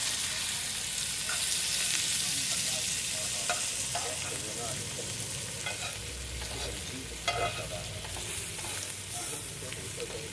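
Food sizzling in butter in a frying pan, with a steady frying hiss. A utensil stirring it knocks and scrapes against the pan a few times.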